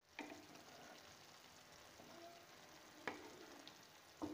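Faint sizzling of fish curry in a mustard and curd gravy simmering in a pan on a low flame, with three brief clicks of a spatula against the pan.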